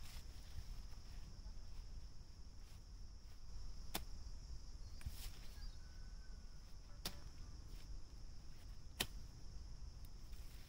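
Knife blade cutting into the stems of a wild eggplant bush: a few sharp clicks several seconds apart, the strongest about four, seven and nine seconds in.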